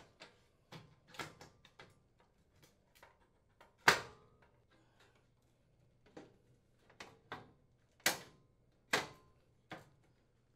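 KitchenAid warming drawer assembly being snapped onto its steel slide rails by hand: a series of sharp metal clicks and knocks, the loudest about four seconds in and two more strong ones near the end, with lighter ticks between.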